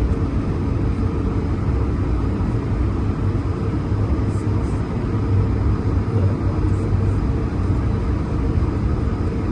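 Airbus A220-300 airliner running, a steady low rumble with a steady hum over it.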